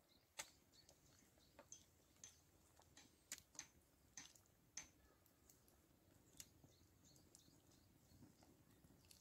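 Near silence with faint, irregular sharp clicks and ticks, about one or two a second, a few of them louder around three to five seconds in.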